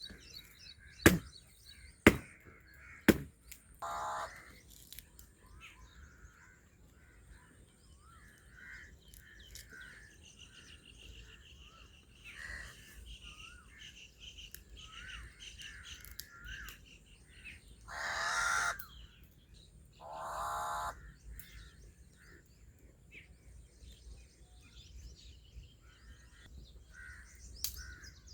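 Crows cawing outdoors: a harsh call about four seconds in and two louder caws about two-thirds of the way through, over continual small-bird chirping. Three sharp knocks, about a second apart, come near the start.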